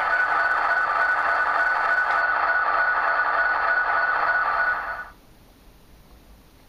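A recorded sound played over a phone's speakerphone: one steady high tone over a hiss, held for about five seconds and then cut off sharply.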